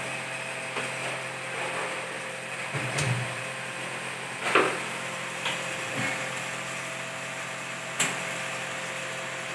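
Aluminium-framed glass kitchen cabinet doors being opened and shut by hand: a series of irregular clacks and knocks, the loudest about four and a half seconds in, with sharp clicks near three and eight seconds, over a steady faint hum.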